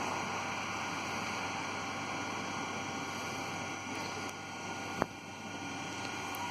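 Steady running noise of a vehicle on the move, an even hum and hiss with faint steady tones, broken by one sharp click about five seconds in.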